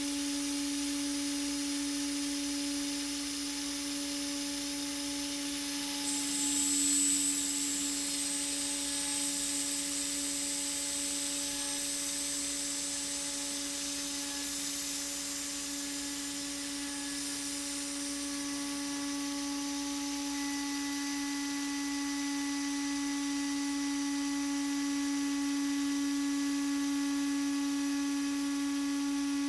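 High-speed CNC router spindle (CNCDepot S30C) running at a steady pitch while an end mill machines aluminum, with a hiss over it. A thin high whine joins about six seconds in and fades out several seconds later.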